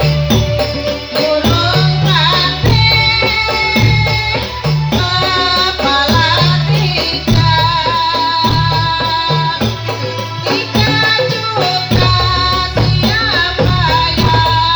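Music for a dolalak dance: a sung, wavering melody over a steady, repeating hand-drum rhythm.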